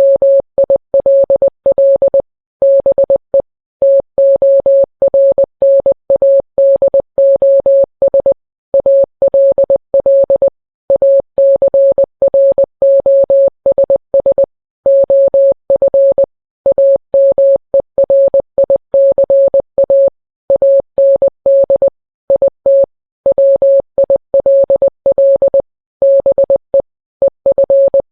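Morse code beeps: a single steady mid-pitched tone keyed rapidly on and off in short dots and longer dashes, with brief pauses between letters and words. It spells out a mock Emergency Alert System warning message.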